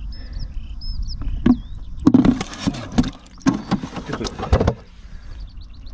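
Plastic handling noise: a run of knocks, scrapes and rustling as a plastic freezer pack and container are moved about in a plastic bin of freshly caught whitebait, from about two seconds in until nearly five. Wind rumbles on the microphone throughout.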